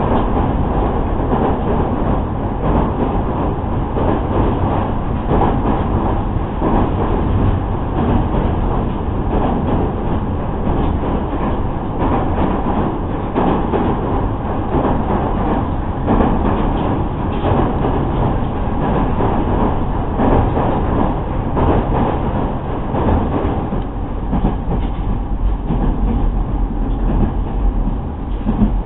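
Interior sound of a JR East 209 series 2000-subseries electric train running at speed: a steady rumble of wheels on rail with irregular clicks and clatter from the track.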